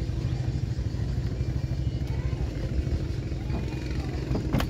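Small boat's motor running steadily at low speed, with a sharp knock near the end.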